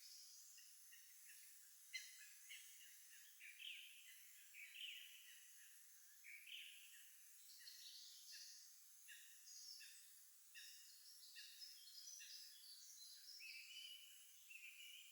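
Faint chorus of songbirds, many short chirps and whistled phrases overlapping one another.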